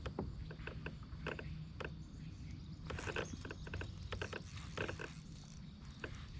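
Scattered knocks, clicks and creaks from a fishing kayak and its gear, over a steady low rumble.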